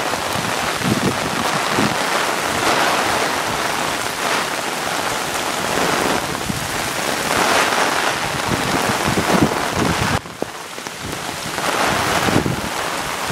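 Heavy typhoon rain pouring down in a steady hiss that swells and eases in gusts, briefly dropping off about ten seconds in.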